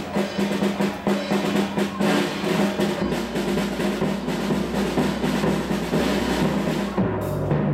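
A children's percussion ensemble playing: drums struck in quick succession over sustained pitched notes from mallet instruments. A deep low note comes in about three seconds in, and the bass line changes near the end.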